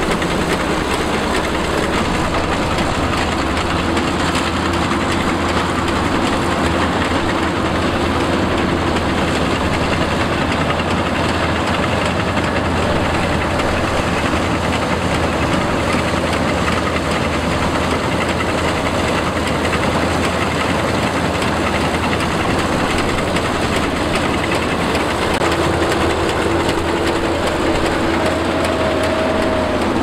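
Cheetah 100 compact rice combine harvester running steadily while cutting and threshing rice: a dense, even engine and machinery clatter with a faint hum that shifts slightly in pitch.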